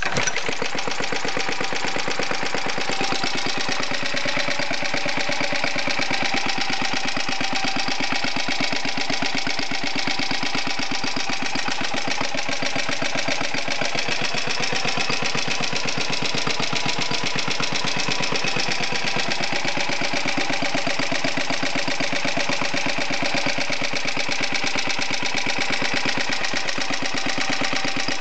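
Briggs & Stratton 5S single-cylinder, air-cooled four-stroke engine idling steadily in an even run of firing beats. The engine has never been rebuilt, and its owner says it knocks a little.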